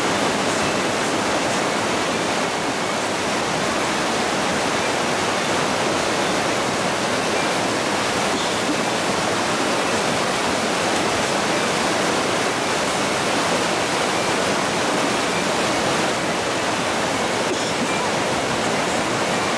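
Whitewater river rapids rushing: a loud, steady noise of churning water.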